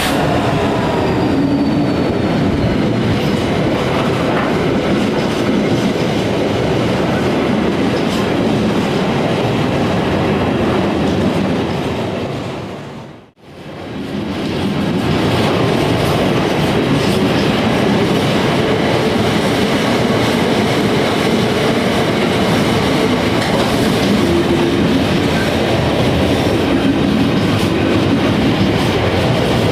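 Freight train passing close by: a steady rumble and clatter of wagon wheels over the rail joints. It fades out briefly about halfway through and straight back in.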